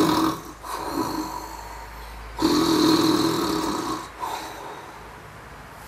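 A man imitating snoring: a loud rasping snore at the start, a softer breath, then a second long snore about two and a half seconds in.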